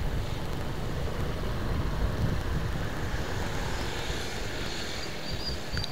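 Steady low rumble of a moving vehicle's engine and road noise, with a few faint high chirps near the end.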